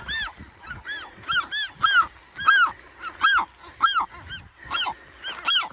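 A nesting colony of western gulls calling, with short, arched cries following one another, about two a second and overlapping. These are agitated calls at a person walking among the chicks.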